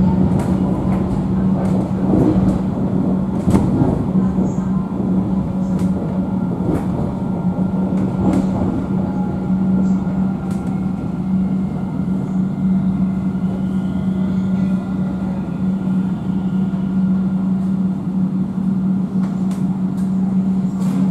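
Alstom Citadis tram running along the street, heard from inside the passenger cabin: a steady low hum over rolling rail noise, with scattered sharp clicks from the running gear and a faint whine near the start.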